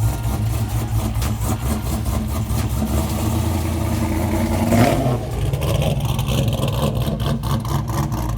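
Cammed American V8 engine idling with an uneven, choppy lope, with a short rise in revs about five seconds in.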